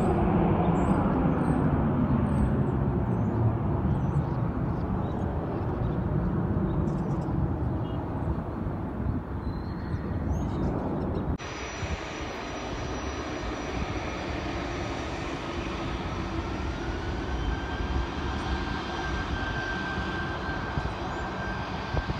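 Jet engine noise from a departing airliner climbing away, fading with falling pitch; then, after a cut, a Delta Connection CRJ-900's twin rear-mounted turbofans on the runway, with a whine that rises about two-thirds of the way in and then holds steady as the engines spool up.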